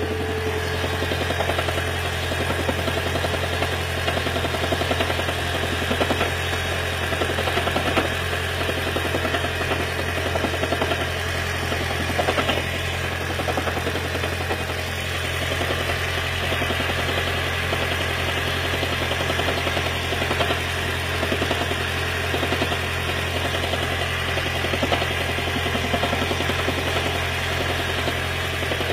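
Lexus CT 200h's 2ZR-FXE 1.8-litre four-cylinder engine running steadily after a cold start with a knocking sound, which the uploader puts down to water leaking into the intake manifold.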